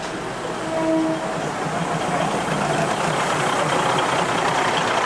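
Maeklong line diesel railcar running slowly alongside, a steady engine and rail noise, with a short steady tone near the start.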